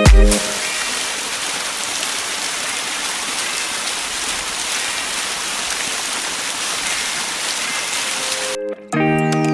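Waterfall water rushing in a steady, even hiss. Dance music cuts off just after the start, and a plucked guitar tune comes in near the end.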